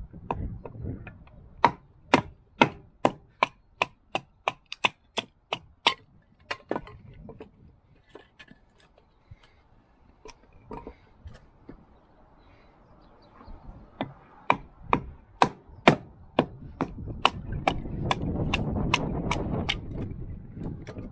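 Wooden baton striking the spine of a camp knife to drive the blade down through a split of firewood: a series of sharp knocks about two a second, in two runs with a pause of several seconds between. A low rushing noise builds near the end.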